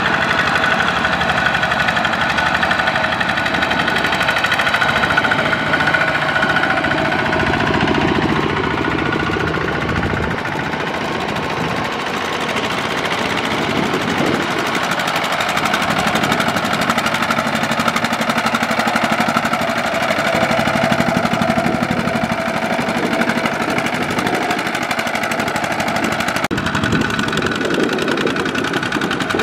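Single-cylinder diesel engine of a two-wheel power tiller chugging steadily as it hauls a loaded trailer through deep mud. Its tone shifts abruptly near the end.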